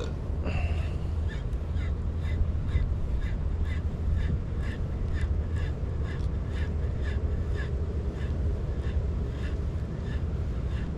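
Fishing reel being cranked during a slow lure retrieve, ticking evenly about three times a second over a steady low rumble.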